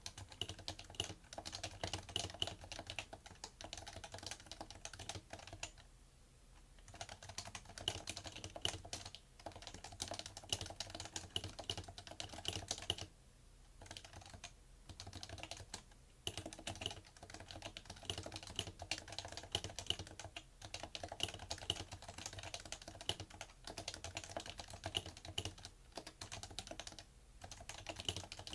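Continuous fast typing on a PFU Happy Hacking Keyboard Professional2 with Topre electrostatic capacitive switches: a dense run of key strokes that also carries through the desk, with brief pauses about six and thirteen seconds in.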